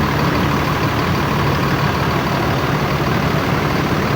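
Tour bus's diesel engine idling steadily close by, an even rumble with a constant hiss over it.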